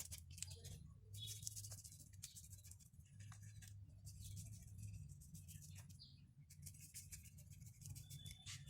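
Faint sizzling and crackling of food frying in hot oil, coming in waves with scattered pops, over a low steady hum.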